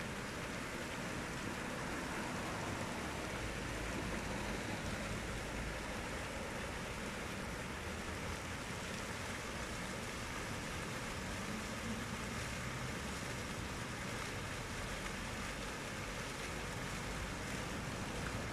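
Plaza fountain with several water jets splashing steadily into its stone basin, an even rush of falling water.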